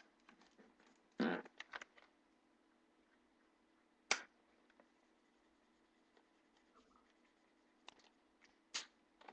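Scattered rustles, clicks and knocks of small objects being handled and moved about, with a cluster about a second in and a single sharp click about four seconds in, over a faint steady hum.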